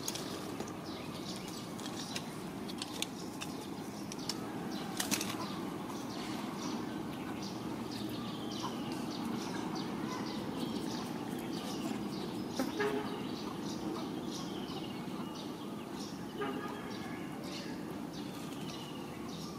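Outdoor background with a steady low hum and many short, high chirps that fall in pitch, scattered through, along with a few soft clicks.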